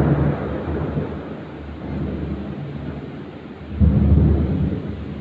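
Thunder in a heavy thunderstorm. A loud peal at the start rolls away into a long, low rumble, and a second loud clap breaks about four seconds in and rumbles off in turn.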